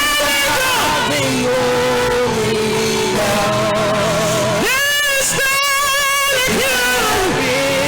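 Live gospel worship music: a singer holds long notes with vibrato, one at the start and another about five seconds in, over a steady accompaniment of sustained chords.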